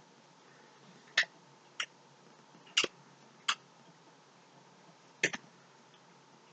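Five short, sharp clicks at irregular intervals over quiet room tone, the third and last of them doubled.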